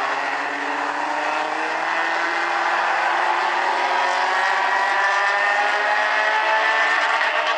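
A pack of Bumblebee-class compact stock cars racing on an oval track, many engines running together with their pitches rising slowly as they accelerate.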